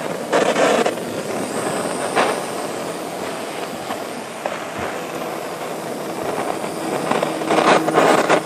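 Handheld gas torch burning with a steady hissing roar, with louder surges about half a second in, near two seconds in and near the end.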